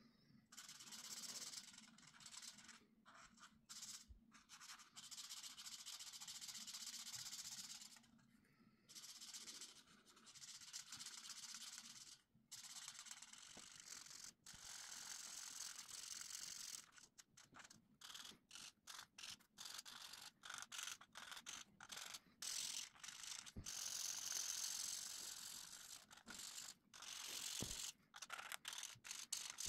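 Felt tip of a Touch Coco marker rubbing on colouring-book paper: a faint scratchy hiss in long back-and-forth stretches, turning into many quick short strokes from about halfway on.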